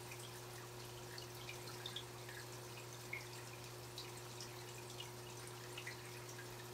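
Aquarium water dripping and trickling: small, irregular plinks of drips and bubbles, several a second, over a steady low hum.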